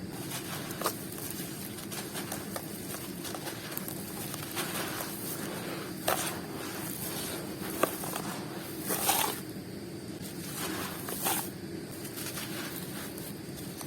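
Crunchy dry balls and squares being crushed and crumbling, with a steady gritty hiss and a few sharp cracks, and a longer crunch about nine seconds in.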